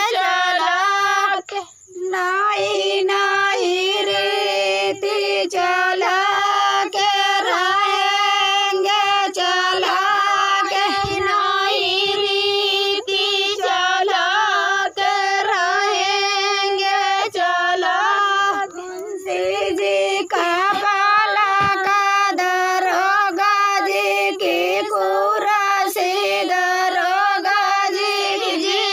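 Women singing a chohkra, a village folk song of the Sandila area sung at weddings, in high voices over a steady held tone, with a regular beat under it. The singing breaks off briefly about two seconds in.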